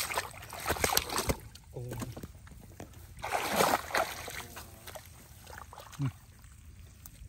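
Bare feet and hands sloshing and splashing through shallow muddy water, in irregular bursts with the loudest splash about three and a half seconds in.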